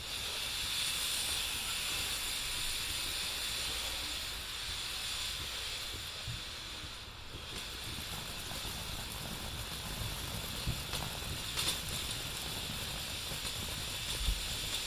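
A firework hissing steadily as it burns and sprays, with a few sharp pops in the second half.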